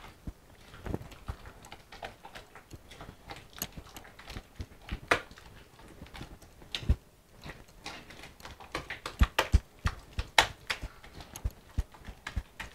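Wooden spatula beating thick plantain and corn-flour batter in a grooved bowl: irregular knocks against the bowl, several a second, as air is whipped in to make the batter fluffy.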